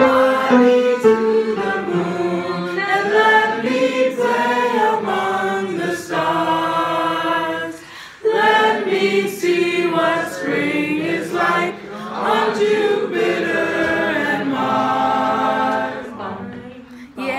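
Unaccompanied singing: a woman's voice holding long, gliding melodic notes, with a short break about eight seconds in.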